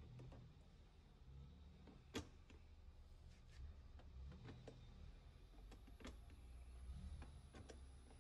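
Plastic fuel filler flap and latch of a Honda SH125i scooter being worked by hand: one sharp snap about two seconds in as the flap clicks shut, then several softer clicks and taps as the latch is pressed and the flap released open.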